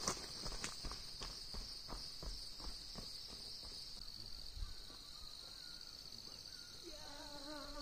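Insects shrilling in a steady, high, even drone, with a run of faint, evenly spaced soft steps or ticks over the first few seconds. Near the end a wavering pitched hum or call starts.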